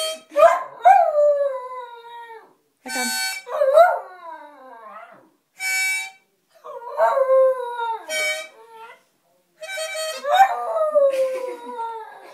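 A Jack Russell-type terrier howling along to a small harmonica: short steady harmonica notes alternate with four long howls, each starting high and sliding down in pitch.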